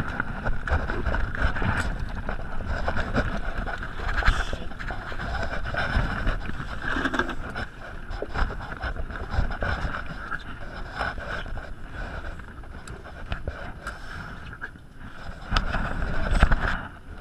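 Wind buffeting the microphone over the steady noise of a small boat on choppy water, with scattered knocks and a louder surge near the end.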